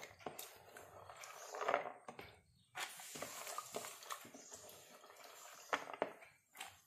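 Faint rustling and light knocks of hands handling soaked chana dal and a steel mixer jar, with a longer rustling stretch near the middle.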